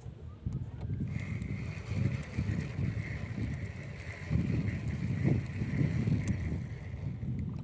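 Low, uneven rumble of wind and handling on the microphone, with a steady high-pitched buzz from about a second in until near the end.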